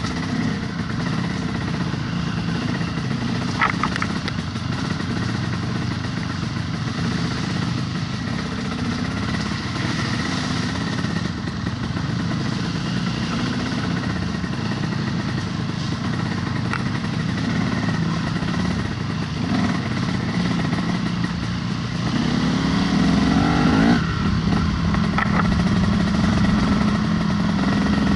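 Dirt bike engine running along a rough trail, its revs rising and falling with the throttle. About 22 seconds in it revs up and stays louder. A couple of short knocks sound over it.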